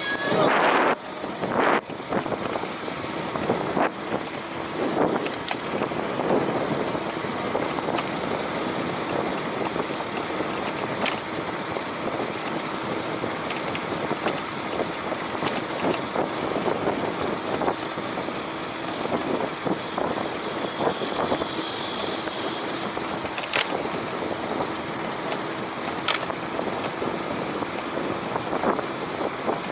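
Steady rushing wind and tyre noise from riding a bicycle, with a thin high-pitched whine running through it.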